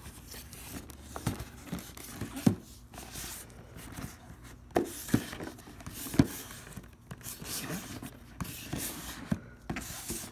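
Hands turning and handling a sealed cardboard box, with fingers rubbing and scraping across its surfaces and an irregular series of light knocks as it is shifted and set against the hands.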